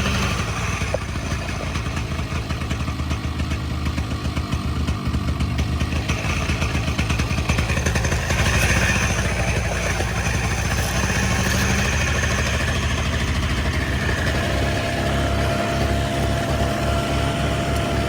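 Paramotor engine running on at low throttle after landing, refusing to shut off because the kill switch has failed (a broken kill-switch wire).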